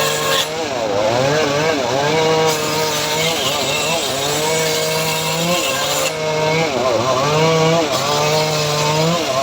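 Homemade power saw rig cutting teak wood, running continuously, its pitch dipping and recovering over and over as the blade bites into the timber.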